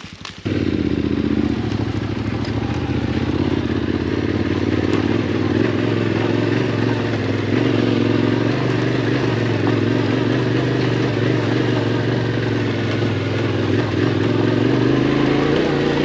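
Yamaha Ténéré 700's parallel-twin engine through a Yoshimura RS-12 slip-on exhaust. It comes up loudly about half a second in, then runs steadily as the bike rides slowly along the trail.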